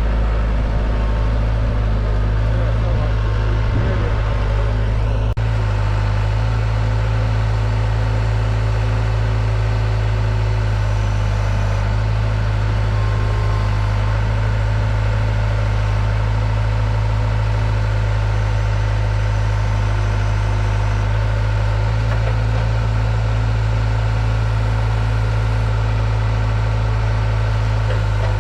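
Diesel engine of a compact construction machine (skid steer or mini excavator) running steadily at an even speed, with a strong low drone.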